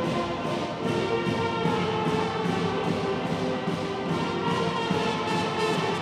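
Wind band of saxophones, brass and drums playing a tune with a steady beat.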